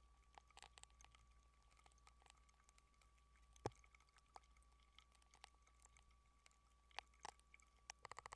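Near silence: a low hum and a faint steady high tone, with scattered faint clicks, a sharper one about three and a half seconds in and another near seven seconds.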